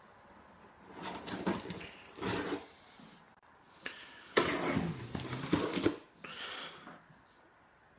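A cardboard parcel being cut and torn open with scissors, tape ripping and cardboard rustling in two bursts, the louder one a little past the middle.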